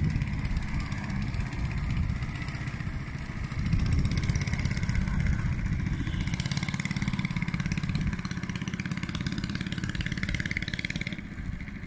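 Long-tail boat engine running steadily as the boat moves along the canal.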